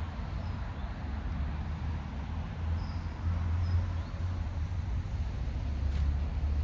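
Outdoor ambience: a steady low rumble with a few faint bird chirps near the middle.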